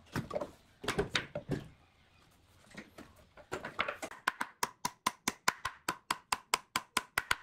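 Pallet boards knocking and clattering as they are handled and laid down on a concrete floor. About halfway through, a fast, even run of sharp taps begins, about five a second, each with a faint ring.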